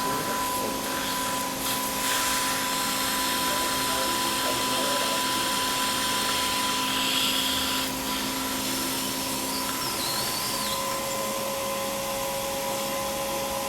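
Suction unit running steadily during an oral procedure: a continuous hissing rush with a low steady hum, the hiss stronger from about two to eight seconds in.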